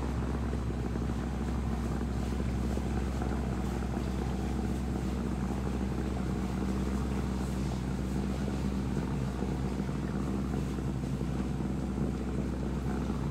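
An engine running steadily at constant speed, a low drone with a steady hum and no changes in pitch.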